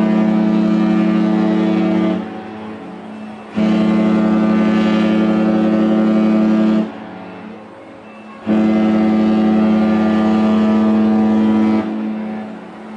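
Cruise ship horn sounding in long, steady blasts: one ending about two seconds in, then two more of about three seconds each, with a pause of a second or two between them.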